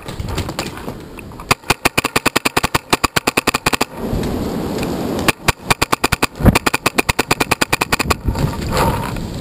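Tippmann X7 Phenom paintball marker firing in rapid strings of shots, about ten a second, with a pause of over a second between strings.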